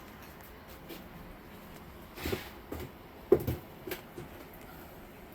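A few soft knocks and bumps, the sharpest about three seconds in, over a quiet room background.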